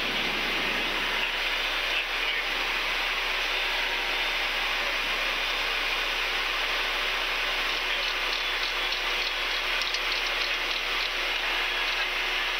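Steady rushing of airflow and turbofan engines heard inside a Cessna Citation business jet's cockpit during the climb after takeoff.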